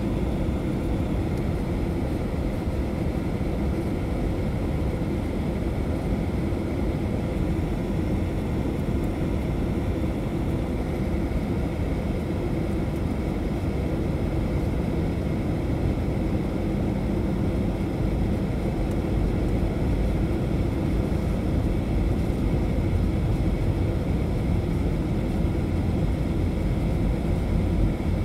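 Steady cabin noise inside a Boeing 737-800 descending on approach: the low rumble of its CFM56-7B engines and airflow along the fuselage, with faint steady engine tones above it. It grows a little louder in the second half.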